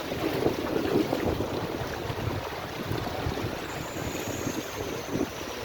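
Floodwater rushing in a strong current, with wind buffeting the microphone in uneven gusts.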